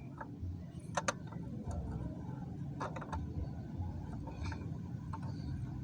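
Sharp clicks and taps of parts and tools being handled while a water pump is put together: a quick pair about a second in and another pair near the middle, with lighter ticks between, over a steady low hum.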